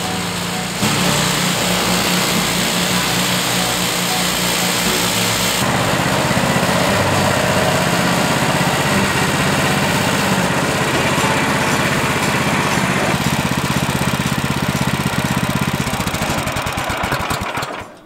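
Small gasoline engine running steadily at speed, its sound shifting abruptly about one second and six seconds in, then dying away just before the end.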